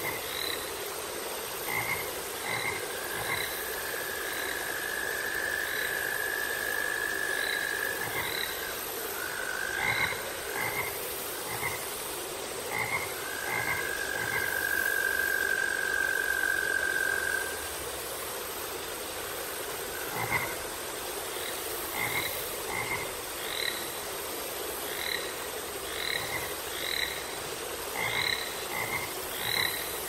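Chorus of frogs calling: short croaks repeated in quick runs throughout, with a long steady trill twice, about three to eight seconds in and again from about thirteen to seventeen seconds in.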